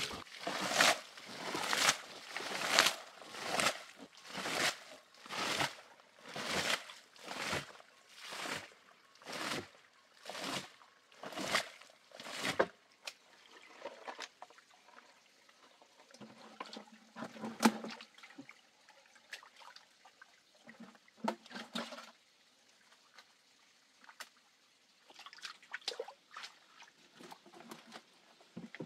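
Muddy pond water being bailed out, splashing about once a second in a steady rhythm. After about 13 seconds this gives way to quieter, irregular sloshing of hands and a plastic basket in shallow muddy water as fish are scooped up.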